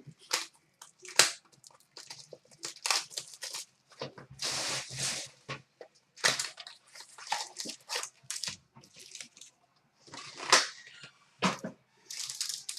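Trading card packaging being torn open and handled: irregular tearing and crinkling of wrappers, with scattered clicks and rustles. A longer tearing stretch comes about four seconds in.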